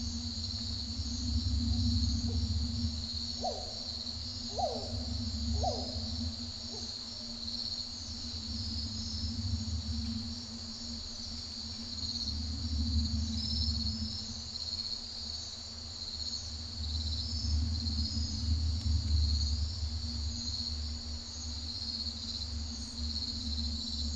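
Night ambience of crickets chirping steadily, over a low rumble and a steady low hum; a few short gliding calls sound about four to six seconds in.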